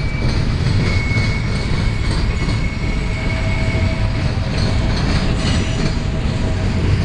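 Freight train of intermodal container cars and autoracks rolling past close by: a steady rumble of steel wheels on rail, with clacking over the joints and a thin high wheel squeal that comes and goes.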